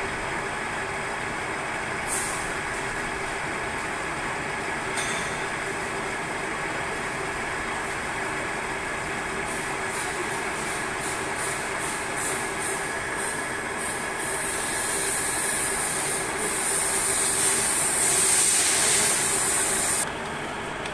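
Metal lathe running steadily while rust is cleaned off a spinning bushing. Short hissing scrapes come and go, then a louder continuous scraping hiss starts about two-thirds of the way in and stops abruptly near the end.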